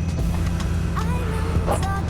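Vehicle engine idling, a steady low hum, with faint music over it.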